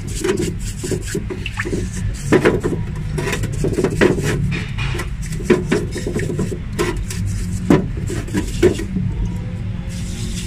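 Stiff bristle brush scrubbing carbon off a diesel-soaked EGR valve housing: irregular wet scrubbing strokes with a few sharper scrapes, over a steady low hum.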